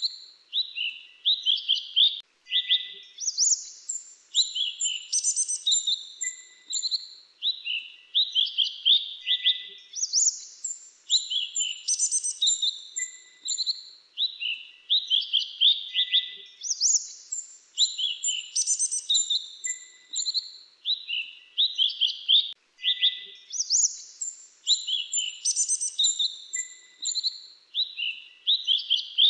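Grey-chinned minivet calling: bursts of high, thin chirps and short trills, repeating about every two seconds.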